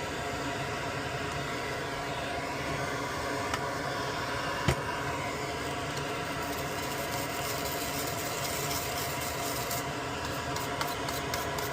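Steady mechanical hum with several fixed tones, like a small fan or bench machine running, with a sharp click about four and a half seconds in. Near the end, quick repeated brush strokes scrubbing the soldered circuit board clean.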